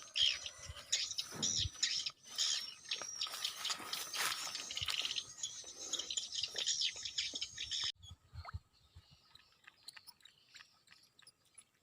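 Many birds chirping and calling at once, a dense chatter of short high calls. It stops abruptly about eight seconds in, leaving only faint scattered ticks.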